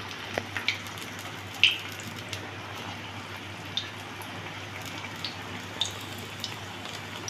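Besan-battered kakrol (spiny gourd) fritters deep-frying in hot oil in a kadai: a steady sizzle with scattered sharp pops, over a faint low hum.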